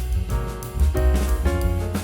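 Background music: an upbeat jazzy tune with piano, bass and drums.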